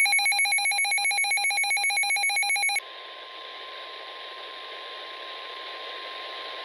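Weather alert radio alarm: a rapidly pulsing electronic beep that stops abruptly about three seconds in. Then comes hissy radio reception carrying the faint, steady NOAA Weather Radio warning alarm tone.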